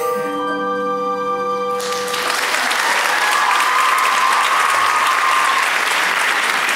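The final held chord of the song's accompaniment rings out and fades, then an audience breaks into applause about two seconds in and keeps clapping.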